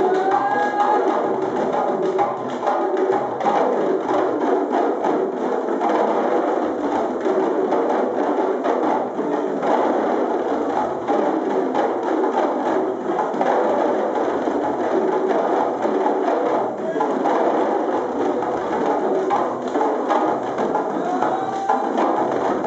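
A group of djembe drums played together by hand, a dense, continuous ensemble rhythm.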